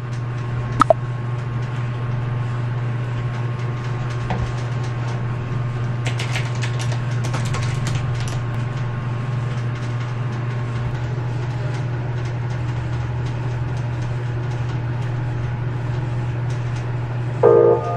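Typing on a typewriter-style keyboard with round keycaps: a run of key clicks about six seconds in, over a steady low hum.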